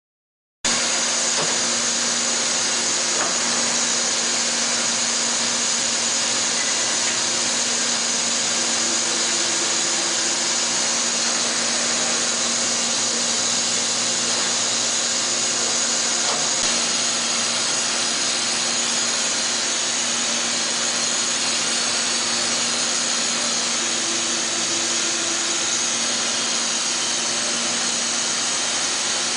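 Makino SNC64-A15 CNC vertical machining center running under power: a steady machine whir and hiss over a constant low hum, cutting in suddenly about half a second in, with a faint extra tone coming and going twice.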